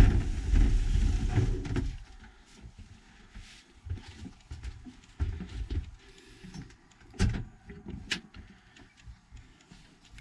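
Sliding acrylic shower door running along its track with a rumbling rattle for about the first two seconds, followed by quieter handling with a few sharp clicks, two of them close together later on.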